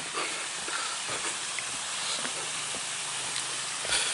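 Steady rushing hiss of flowing water, with a few faint ticks over it.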